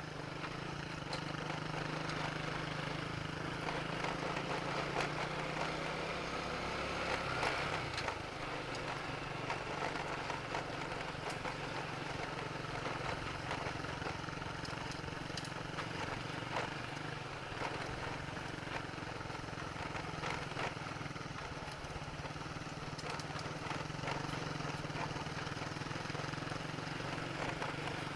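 Honda Supra X 125's single-cylinder four-stroke engine running steadily while the motorcycle is ridden, with a steady rush of road and wind noise.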